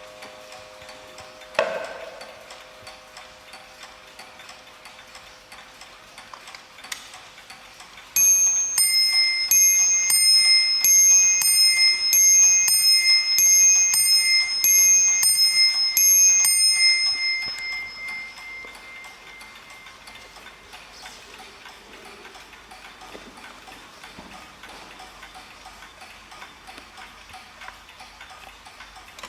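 Mantel clocks ticking. About eight seconds in, a bim-bam strike rings out: two small bells struck in turn, about a dozen high strokes over some nine seconds, then dying away. Near the start, a lower gong note fades out and a sharp knock sounds.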